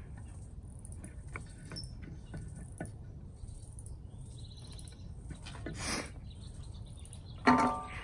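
Small clicks and rustles of wire connectors and plastic being handled at a truck's reverse-light housing, over steady low outdoor noise with faint bird chirps. About six seconds in there is a short rustling burst, and a brief, sharper pitched sound near the end is the loudest thing.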